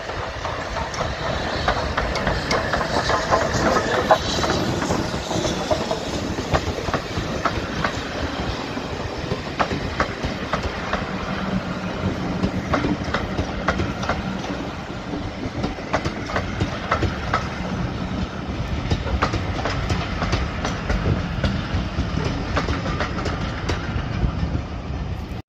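Steam train hauled by BR Standard Class 4MT 4-6-0 No. 75014 Braveheart running past. The engine goes by in the first few seconds, then a steady rumble of coaches follows, their wheels clicking regularly over the rail joints.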